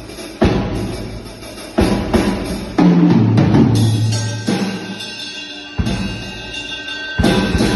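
Drum kit played in slow, heavy hits, about six over the stretch, each a low drum boom with cymbals ringing on between strikes.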